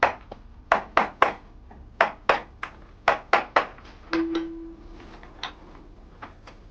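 A carver's mallet striking a gouge into limewood: about a dozen sharp knocks in quick groups of two or three, as the wood is cut down. A short held musical note sounds about four seconds in.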